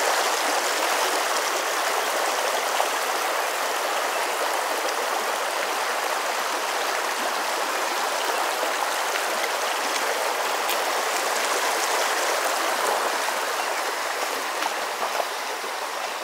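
A small creek running: a steady, even rush of flowing water.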